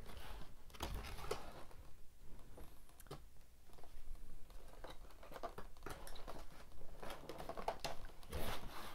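Cardboard packaging being handled: a card tray holding a toy car is slid out of its box and set down, giving scattered rustles, scrapes and light clicks, with a louder rustle near the end.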